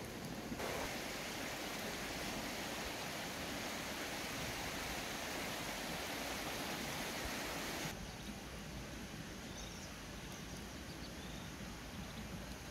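Steady outdoor background hiss with no clear single source. It drops abruptly to a quieter level about eight seconds in, and a few faint high chirps follow.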